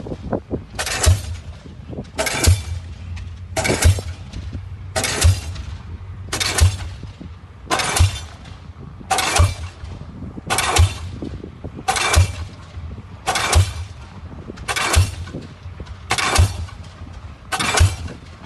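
Diesel pile hammer driving a pile: a steady train of heavy blows, about one every 1.4 seconds, thirteen in all. Each strike rings out and hisses briefly.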